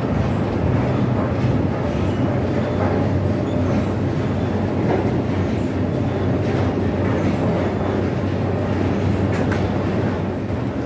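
Clay roof tile factory machinery running: a steady mechanical rumble and rattle over a low hum.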